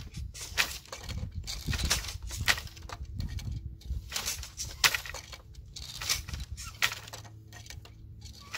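Wooden floor loom being woven at working speed: a run of sharp wooden knocks and clacks, about one a second, as the beater packs each pick of weft into the cloth between shuttle throws.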